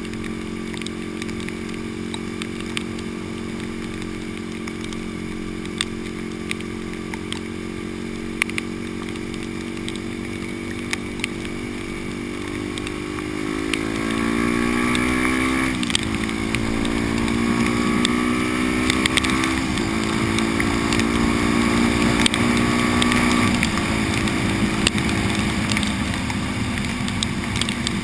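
Supermoto motorcycle engine running at a steady cruise, then accelerating through the gears about halfway through: the pitch rises, drops at each of a few upshifts, and settles into a steadier, louder note. Occasional sharp ticks sound throughout.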